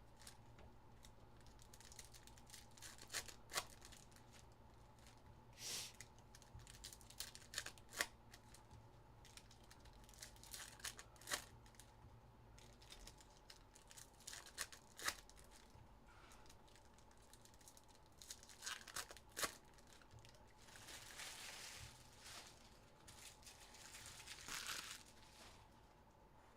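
Trading card pack wrappers being torn open and crinkled. The sound is faint: scattered short crackles and snaps, then two longer stretches of rustling tearing near the end.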